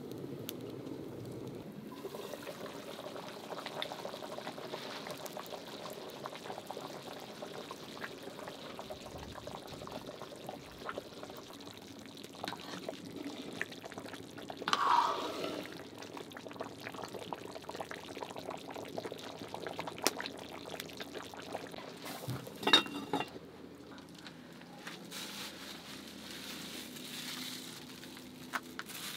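Chicken stew simmering and bubbling in a pot over a wood fire. About halfway through, a ladle stirs and scoops the liquid with a brief pouring sound, and a short metal clatter follows a few seconds later.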